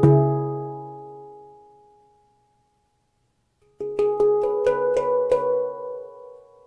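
Handpan tuned to C# Celtic Minor, struck once, the note ringing out and fading away over about two seconds. After a pause of about a second and a half, a quick run of about six notes, about three a second, rings on and dies down near the end.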